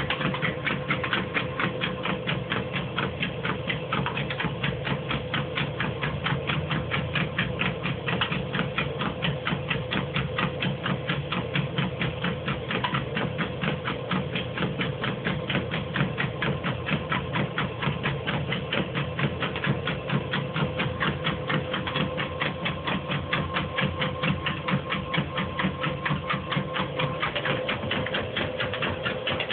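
Dog treadmill running with a pit bull puppy trotting on the belt: a steady motor hum under a fast, even clatter.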